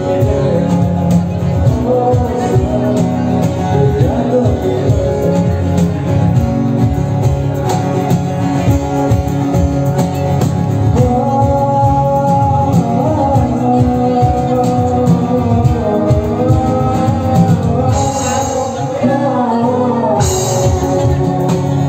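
A live acoustic band playing an unplugged Bollywood song: sung vocals over strummed acoustic guitar and percussion.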